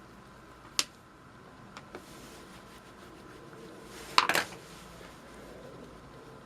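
Light metallic clicks and clinks of hand tools and carburetor parts being handled during a carburetor teardown. One sharp click comes just under a second in and two faint ones near two seconds; the loudest is a quick rattling cluster a little past four seconds.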